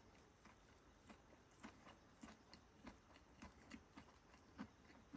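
Faint chewing of bolete mushroom tempura: soft, irregular crunches, two to three a second, as the batter and the firm mushroom stem are bitten through.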